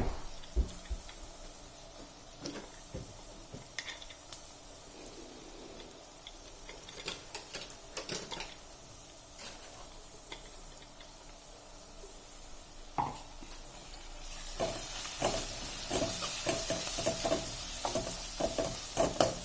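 Spoon stirring and knocking in a pan of onions frying in oil with freshly added ground masala. For most of the time there are only scattered knocks over a faint sizzle; about two-thirds of the way through the sizzling grows louder and the spoon scrapes and clicks more often.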